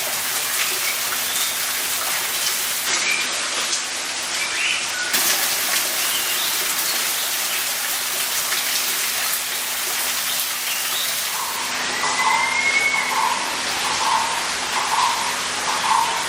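Steady hiss of falling water, with birds calling over it: a few short chirps in the first half, then, about two-thirds through, a rising whistle and a run of evenly spaced repeated notes.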